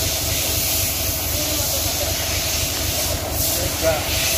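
Steady low mechanical rumble with a constant hiss and a faint steady hum, the running background of heavy vehicles or machinery.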